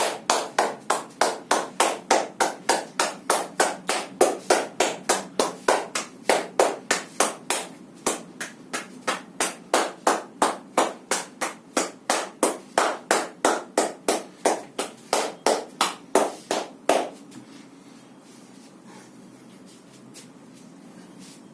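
Rhythmic slaps of hands striking the body in percussive massage, about three strikes a second, that stop suddenly near the end, leaving quiet room tone.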